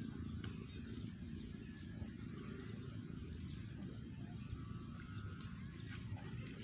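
Quiet outdoor ambience: a steady low rumble with faint, scattered high chirps.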